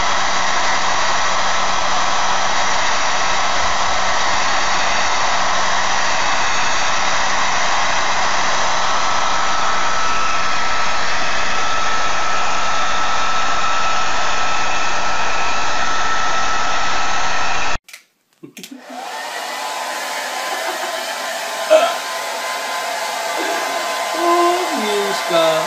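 Handheld hair dryer running steadily with a faint high whine in its rush of air. About two-thirds of the way in it stops, and after a brief gap a hair dryer starts up again with a slightly different, wider hiss, broken once by a short sharp knock.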